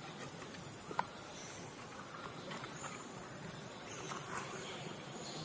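Steady outdoor background noise with faint scattered high chirps, and one sharp click about a second in.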